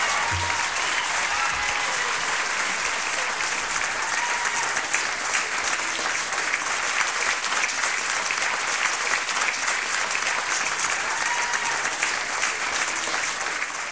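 Audience applause at the end of a live song recording, a dense steady clapping. A little music fades out in the first second.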